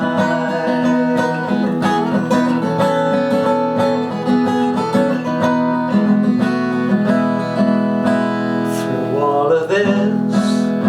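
Acoustic guitar playing an instrumental passage of a song, chords strummed and picked over sustained low notes.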